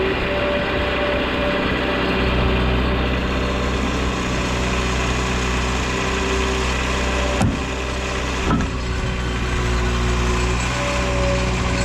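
Engine running steadily, with two clunks about a second apart a little past halfway through.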